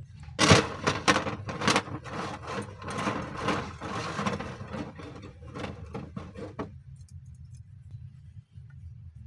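A bundle of thin metal rods rattling and clicking against a hard tabletop as it is handled: a dense, irregular clatter that starts about half a second in and cuts off sharply near the seven-second mark, over a steady low hum.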